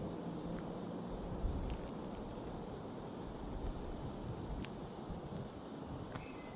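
Steady outdoor background hiss with low rumbles and a few faint ticks and taps.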